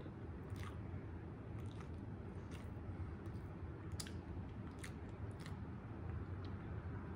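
A person chewing a mouthful of fast food, with scattered small clicks from the mouth over a low steady hum.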